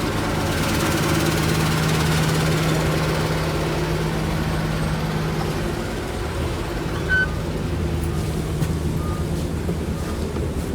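2010 Orion VII NG city bus idling with a steady low hum and a rattle from the bus body. A short high beep comes about seven seconds in.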